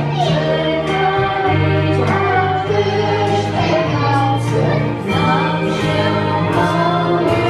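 Choral music: voices singing together over long held low notes that change every second or two.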